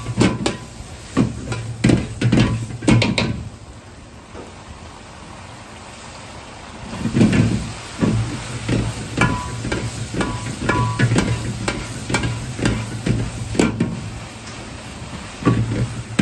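Metal ladle scraping and knocking against a wok while cabbage and noodles are stir-fried, with frying sizzle beneath. The strikes come in quick runs, with a lull of a few seconds about four seconds in.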